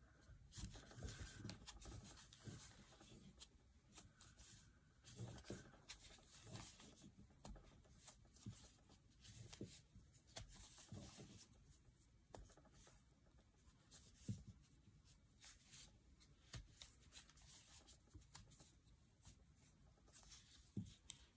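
Faint rustling of thick ribbon yarn and light clicks of a metal crochet hook working single crochet stitches, heard as scattered soft scrapes and taps.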